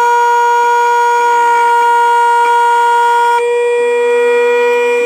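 Silca V8/X6 automatic key cutting machine's cutter milling a brass Toyota edge key blank: a loud, steady whine whose tone changes about three and a half seconds in.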